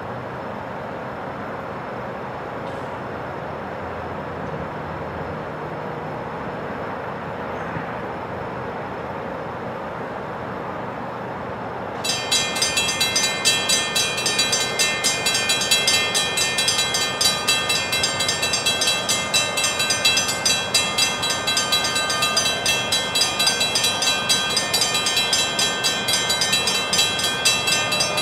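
Railroad grade-crossing warning bell starts suddenly about twelve seconds in and keeps ringing with rapid, regular metallic strikes, the signal that a train is approaching the crossing. Before it starts there is only a steady background rumble.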